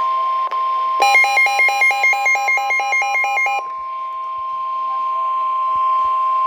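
NOAA Weather Radio warning alarm tone: a steady, loud tone of about 1 kHz held throughout. From about a second in until past the halfway point, an electronic alarm beeps over it in a harsh two-tone warble, about four or five beeps a second, then stops, leaving the plain tone. The tone signals that a warning (here a special marine warning) is about to be read.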